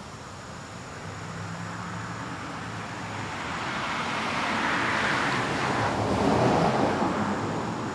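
A vehicle passing by: a broad road noise that grows louder over several seconds, peaks about three-quarters of the way through, then begins to fade.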